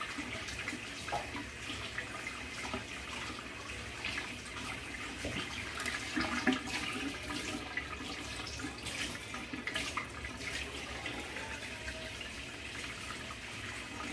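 Kitchen tap running into a stainless steel sink while country-style ribs are rinsed under the stream, with scattered light knocks and clatter.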